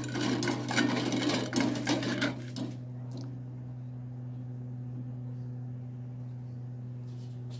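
A metal spoon scraping and clinking against a stainless steel pot as cheese sauce is stirred, for about two and a half seconds. After that only a steady low hum is left.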